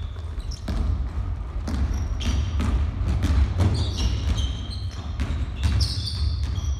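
Basketball being dribbled on a hardwood gym floor, its bounces landing as irregular sharp knocks, with many short high sneaker squeaks and running footsteps from players moving up the court.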